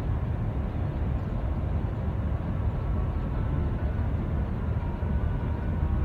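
Steady low rumble of an express coach on the move, heard from inside the passenger cabin: engine and road noise.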